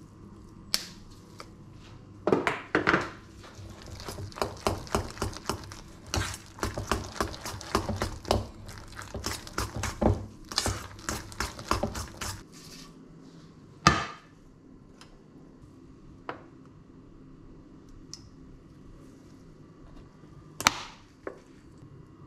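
A metal spoon stirring and beating a thick mashed-potato mixture in a stainless-steel bowl: rapid clinks and scrapes against the bowl for about ten seconds. Two single sharp knocks follow later.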